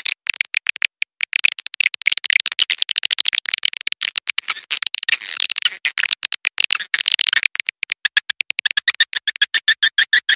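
Swiftlet lure call recording: a dense, rapid twittering chatter of swiftlet chirps, settling near the end into a fast, evenly spaced train of high chirps.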